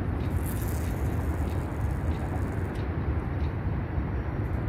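Steady low outdoor rumble with no clear single source, with a brief high hiss about half a second in.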